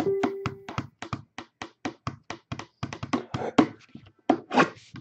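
Rapid, even tapping on a shrink-wrapped cardboard card box, about five or six sharp taps a second, building up before the box is opened; a short steady low tone sounds under the first second.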